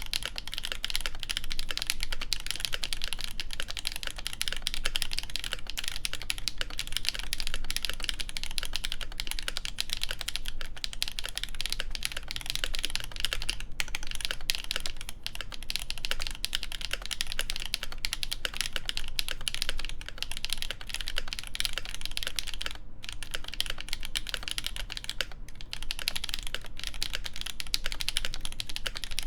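Continuous fast typing on an ASUS ROG Azoth mechanical keyboard with lubed Gateron Duck switches, a stainless steel plate and GMK keycaps: a dense stream of keystroke clacks, broken by a few brief pauses.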